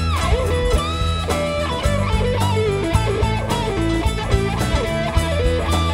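Live rock band playing an instrumental passage: electric guitars, bass guitar and drums, with a lead line that bends its notes up and down over a steady beat.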